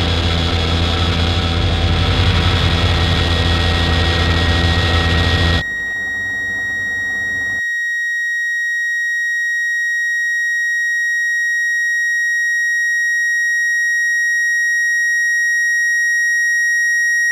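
A dense, harsh drone of noise with a low hum cuts off about five and a half seconds in, leaving a single high-pitched electronic tone that holds steady and slowly grows louder.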